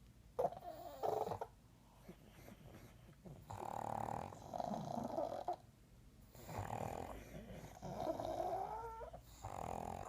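Pugs snoring in their sleep: about four drawn-out snores in a row, with a thin whistle in them, one gliding up in pitch near the end.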